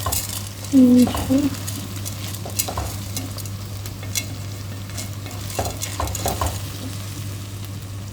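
Onions, carrots and small macaroni sizzling in oil in a cooking pot as they are stirred, with a spoon knocking against the pot several times.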